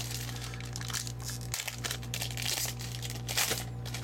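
Plastic trading-card pack wrapper being opened and crinkled by hand, with irregular crackles throughout.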